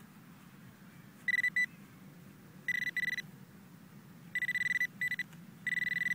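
Handheld metal-detecting pinpointer probe sounding a steady high beep in about five short bursts, each under half a second, as it is swept through a dug hole in turf: it is signalling metal close to its tip.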